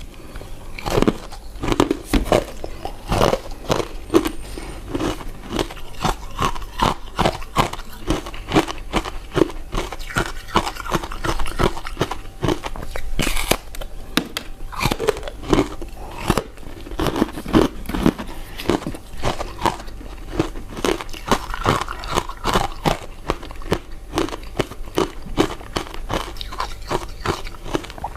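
Close-miked eating sounds: a person biting and chewing soft, sticky glutinous rice desserts (purple rice cakes, sweet potato balls and mochi), with a steady stream of wet mouth clicks and smacks.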